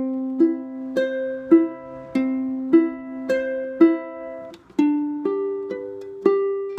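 Ukulele fingerpicked slowly, one plucked note at a time, about two notes a second in a repeating pattern over a C chord. A little under five seconds in the notes shift to a new chord shape and the pattern carries on.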